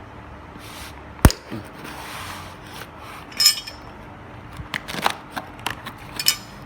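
A parcel being opened by hand: packaging rustling and scraping, with one sharp loud snap about a second in and several smaller clicks and crinkles after it.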